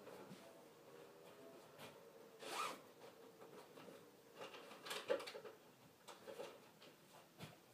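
Faint scratching of a marker writing on a paper pad, in a few short strokes with small clicks between them.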